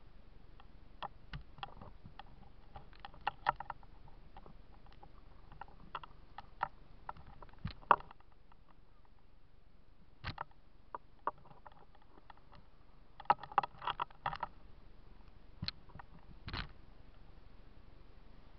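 Sporadic sharp clicks and knocks over a faint steady hiss, bunched about three and a half and again about thirteen and a half seconds in: handling noise of a body-worn camera knocking and rubbing as its wearer moves.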